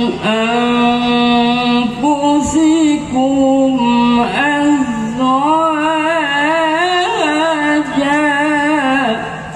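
An elderly man chanting Quranic recitation (tilawah) into a handheld microphone, drawing out long melodic notes with wavering ornaments on 'min anfusikum azwajan'. The voice breaks off shortly before the end.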